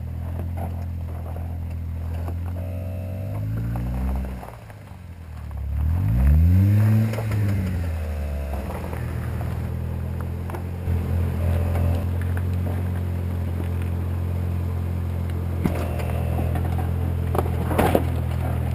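Jeep Wrangler JK's 3.6-litre V6 engine revving up and easing off a few times, then running steadily at low revs while crawling a trail obstacle, with a couple of knocks near the end.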